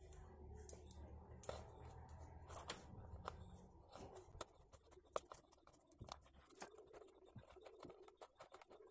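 Faint scraping and small clicks of an F-type coaxial connector's metal nut being twisted by hand onto a satellite finder's threaded port.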